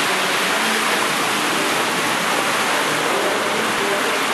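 Heavy downpour of rain: a loud, steady, dense hiss of rain pouring down onto a wet street.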